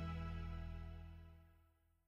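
Background music ending on a held chord that fades out to silence near the end.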